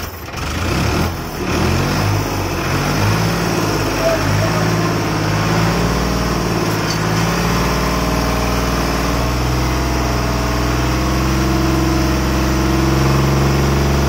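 Ford 3600 tractor's three-cylinder engine running, its note wavering at first and then settling into a steady idle over the last few seconds.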